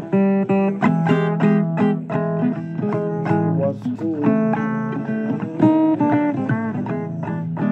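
Blues guitar playing, picked single notes and chords, with a few bent notes about halfway through.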